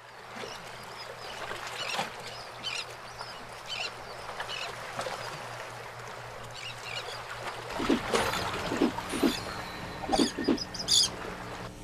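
Birds chirping in short scattered calls over a steady wash of outdoor noise; about eight seconds in, a low steady hum joins.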